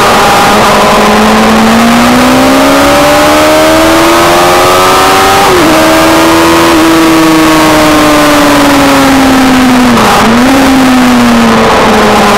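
Sport motorcycle engine at high revs on a race track: the pitch climbs for about five seconds, dips briefly with a gear change, holds, then eases down with another quick dip near the end, under heavy wind rush on the onboard microphone.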